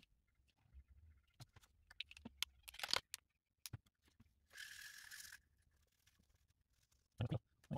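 Light handling sounds of a paper paint cup and a small brush on a workbench: scattered soft clicks and taps, a short scrape about three seconds in, and a brief hiss about two-thirds of the way through.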